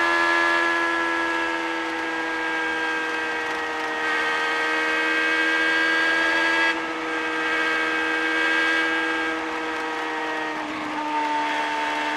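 Onboard sound of an IndyCar's Honda V8 engine held at high revs on the oval, a steady high-pitched note that dips slightly in pitch near the end.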